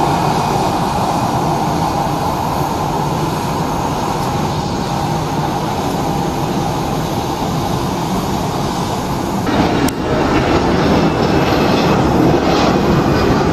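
Airbus A321's CFM56 turbofans at low taxi thrust: a steady jet rumble with a faint whine. About nine and a half seconds in, it cuts abruptly to the louder, fuller engine noise of an Airbus A320 climbing out after take-off.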